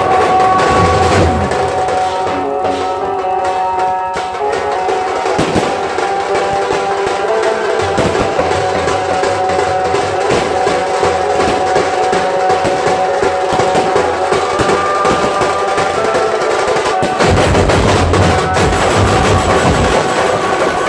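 Benjo band music: a melody on the benjo played through loudspeakers over a group of large drums beaten with sticks. The heavy low drumming drops back after about a second and comes in strongly again near the end.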